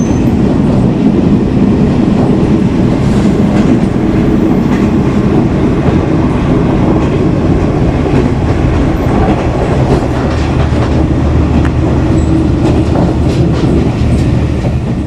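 KiHa 47 diesel railcar under way, heard from inside the carriage: a loud, steady rumble of the engine and the wheels on the rails, with a few faint clicks from the track.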